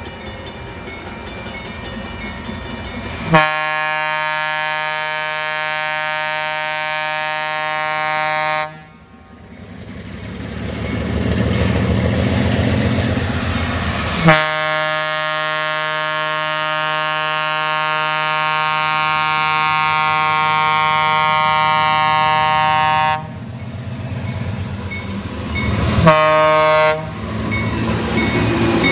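ALCO RS-3 diesel locomotive blowing its air horn on approach: a long blast, a second long blast, then a short one, in the grade-crossing pattern. Between the first two blasts the locomotive's V-12 diesel rumble builds as it works hard.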